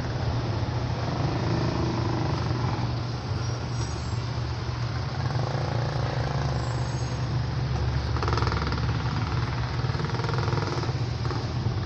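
A machine running steadily: a loud low motor hum with rough, even noise over it.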